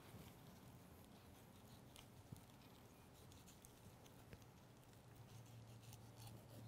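Near silence: faint scraping and ticking of a boning knife slicing the fat cap off a raw pork shoulder, over a low steady hum that grows a little stronger near the end.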